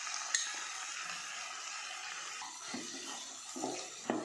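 Onion, capsicum and tomato sizzling steadily in a hot nonstick pan, with a slotted spatula stirring and scraping through it in the second half. A sharp tick comes about a third of a second in.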